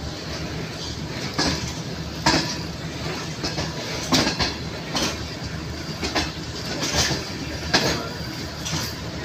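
Passenger train running, heard from inside a coach: a steady rumble with a wheel clack over the rail joints about once a second.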